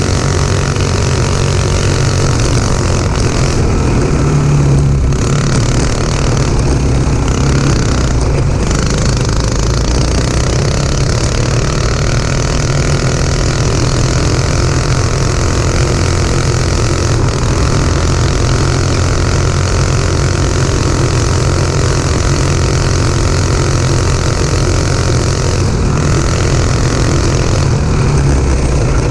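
A go-kart's Honda 5.5 hp single-cylinder four-stroke engine running hard at speed, heard from on board, under a steady rush of wind and tyre noise over dirt and gravel.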